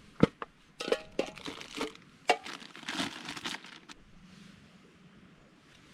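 Crinkly material being handled and crumpled, with several sharp clicks, for about four seconds, then only faint background.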